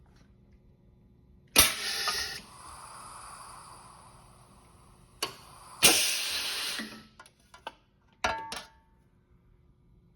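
Pneumatic hot dimpling machine cycling on a rivet hole: a sharp blast of air hiss as the ram's air cylinders fire, fading to a softer hiss, a click, then a second loud air blast and a short exhaust burst near the end. It is the machine's two-stage action, a quick approach and then full force.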